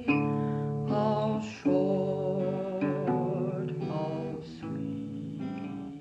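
Slow acoustic guitar music, with chords strummed and left to ring.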